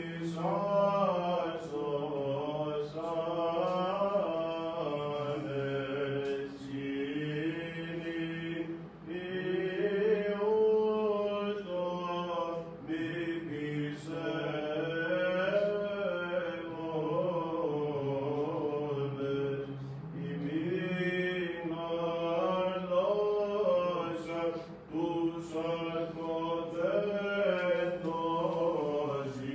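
Male voice singing Byzantine chant, a slow, winding melodic line over a steady low held drone (the ison), breaking only for short breaths.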